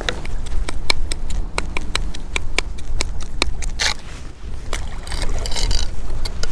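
Chum scoop tapping and scraping on a concrete breakwater as sardine chum is scooped up and thrown, a quick run of sharp taps with a longer scraping rustle about five seconds in, over a steady low rumble.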